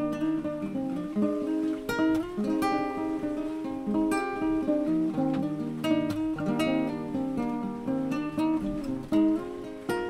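Background music: an acoustic guitar strumming and picking chords, with no singing.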